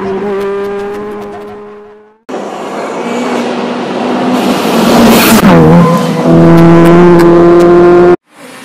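Rally car engines at full throttle: one fades away as the car drives off. Then, after a cut, another grows louder, dips briefly in revs about halfway, and holds a loud steady high note before cutting off abruptly.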